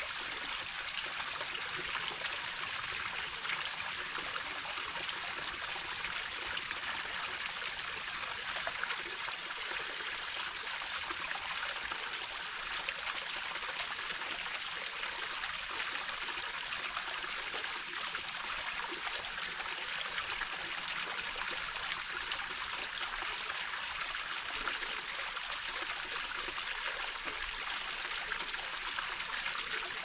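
A shallow brook babbling steadily as it spills over a low rock ledge and runs between stones. It is a continuous rush of water, mostly in the higher pitches.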